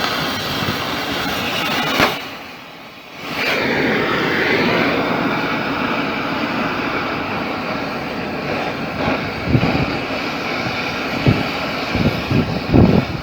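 Steady, loud machinery roar that drops away briefly about two seconds in, then returns. A few short knocks come near the end.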